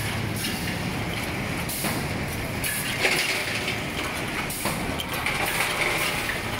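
Yawei YW-L4S four-cavity PET blow moulding machine running: a steady mechanical din with short hisses of air and sharp clicks of its moving parts and plastic preforms.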